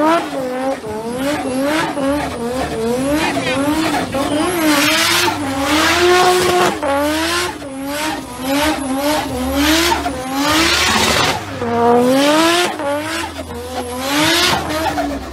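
Turbocharged RB25DET straight-six of a Nissan Skyline R33 GTST revving hard, its pitch swinging up and down again and again as the throttle is worked, with tyres squealing and hissing in repeated bursts during a smoky burnout and drift.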